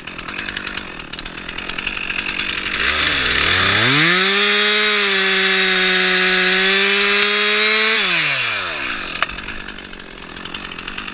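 Two-stroke chainsaw revved from idle up to full speed about three seconds in, held at high revs for about four seconds, then let back down to idle.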